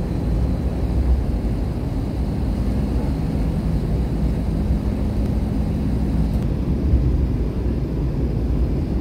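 Cabin noise of an Airbus airliner on approach to landing: a steady low rumble of engines and airflow, with a low hum that stops about six seconds in.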